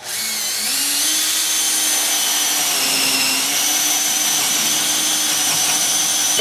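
Cordless drill boring a large wood bit, about an inch and a quarter, down through a wall's wooden top plate: a steady motor whine with the bit cutting wood, coming up to speed in the first second.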